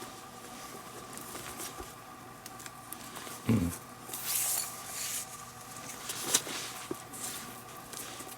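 Leather lace being pulled through the lacing holes of a baseball glove and snugged down by hand: soft rubbing and scraping, with a dull thump about three and a half seconds in and a sharp click a few seconds later, over a faint steady hum.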